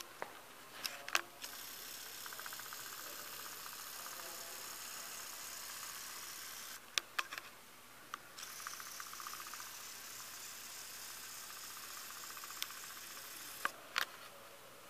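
Faint steady hiss of room tone, broken by a few sharp clicks and knocks, twice close together near the start and near the end.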